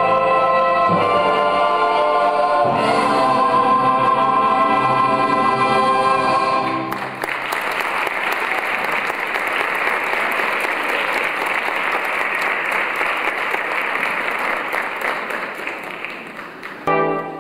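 A large chorus with pit orchestra holds the closing chord of a stage-musical ensemble number, then an audience applauds for about nine seconds, fading toward the end. Brass music starts again just before the end.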